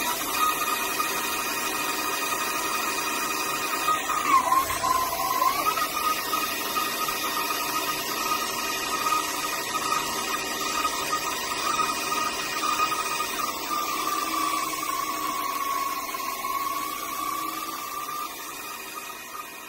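Small CNC lathe turning a part: the spindle drive runs with a steady high whine over the hiss of the tool cutting, the pitch dipping briefly about four seconds in. The sound fades away near the end.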